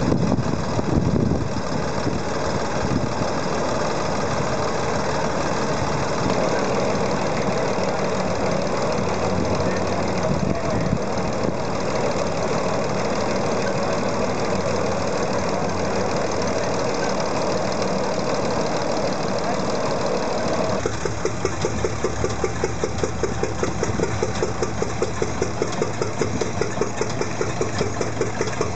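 Old engine running steadily. About 21 seconds in, the sound cuts to another engine running slowly with even, distinct beats about five times a second.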